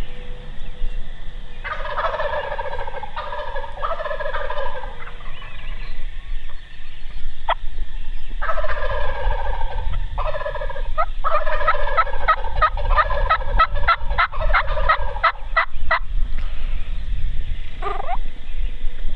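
Wild turkey gobblers gobbling from the roost at first light: one rolling gobble, then another that runs into a long string of quick, rattling notes, with a short call near the end.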